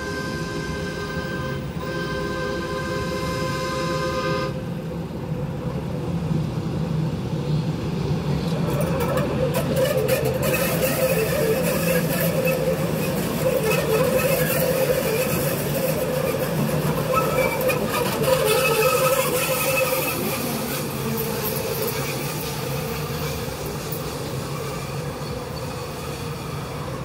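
DART light rail train sounding its horn in two blasts, then passing at close range, the running noise swelling with wavering high tones as it rounds the curve, and fading near the end.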